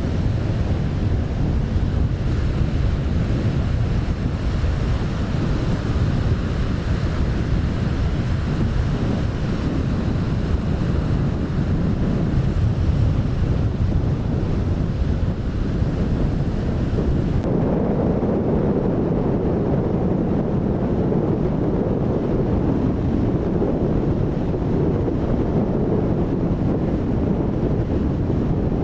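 Strong wind buffeting the microphone over the rush of waves breaking. About two-thirds of the way through, the sound changes abruptly to a duller, more muffled rush with the treble gone.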